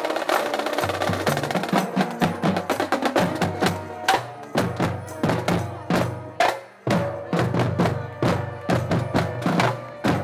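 Marching band drumline playing a cadence: snare drums with sharp strokes and rolls over bass drums.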